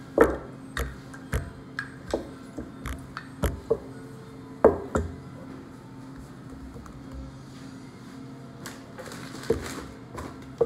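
Wooden rolling pin working dough on a wooden table: a run of sharp knocks and clacks about twice a second, loudest over the first five seconds, then fewer.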